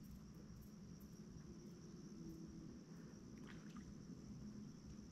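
Near silence: faint outdoor ambience with a steady low hum and a thin, steady high-pitched whine, and a couple of faint ticks about three and a half seconds in.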